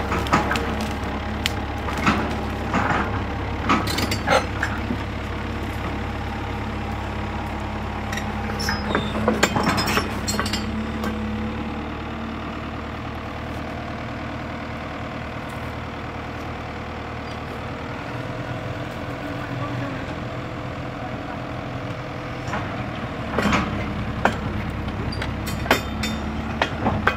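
Tata Hitachi Zaxis 120 tracked excavator's diesel engine running steadily as it digs, with scattered clanks and knocks from the bucket and arm, a cluster about a third of the way in and more near the end.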